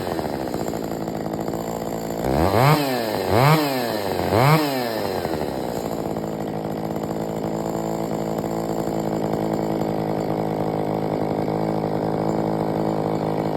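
John Deere 66SV two-cylinder two-stroke chainsaw idling, then revved up and back down four times in quick succession, then idling steadily.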